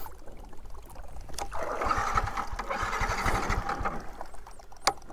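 Water draining and trickling out of a vehicle that has just been submerged, getting louder about a second and a half in, with a sharp knock then and another near the end.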